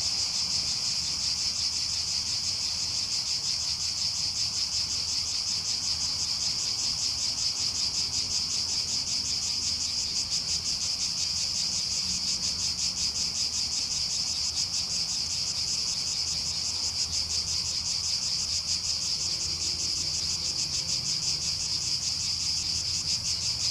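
Chorus of cicadas singing: a steady, high-pitched buzz with a fast pulsing texture that carries on unbroken.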